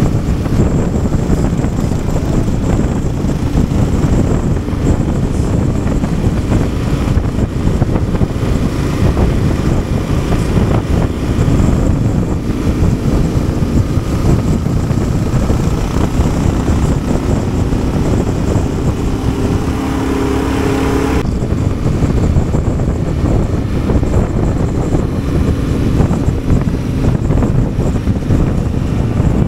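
Adventure motorcycle engine running while riding off-road, with wind buffeting the microphone. The sound changes abruptly about 21 seconds in.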